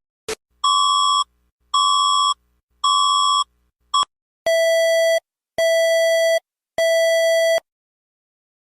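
Electronic emergency alert tone: three short beeps, then three longer beeps at a lower pitch, evenly spaced about a second apart.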